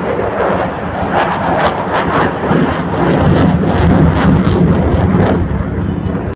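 Aircraft flying overhead: loud, rough rushing engine noise with a crackling, gusty texture, building to its loudest around the middle.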